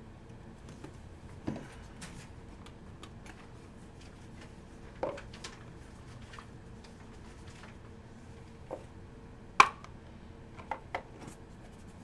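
A box cutter slitting a sealed trading-card box, then the cardboard box and cards being handled, with scattered sharp clicks and taps. The sharpest tap comes a little over nine and a half seconds in.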